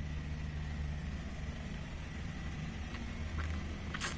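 Steady low hum of background noise in the room with a faint thin high tone above it, and a short click near the end.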